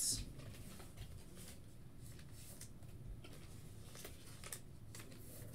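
Faint rustling and light clicks of trading cards being handled and sorted, over a low steady hum.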